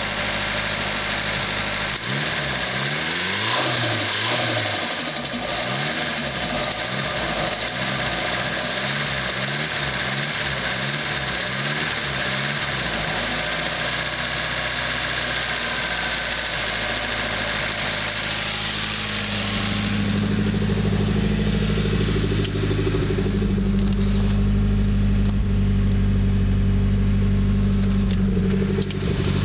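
Nissan SR20DET turbocharged inline-four running. It is revved up and down repeatedly for about ten seconds, then settles to a steady speed and grows louder and deeper about two-thirds of the way through. The engine has a tick that the owner wonders is the lifters.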